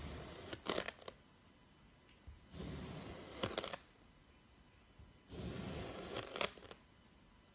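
A knife slicing through a block of kinetic sand, three slow cuts about two and a half seconds apart. Each is a grainy rasp lasting about a second that ends in a few sharp crackles as the blade comes through.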